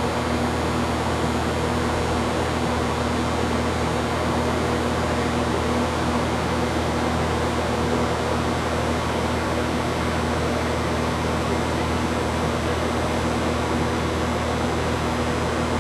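TIG welder running continuously during a weld: a steady arc hiss over a constant low electrical hum.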